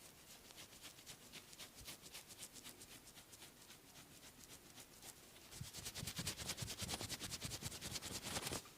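Massage percussion: hands patting the body in a fast, even rhythm, several light pats a second. About five and a half seconds in the strokes turn into louder, harder slaps with dull thumps, then stop shortly before the end.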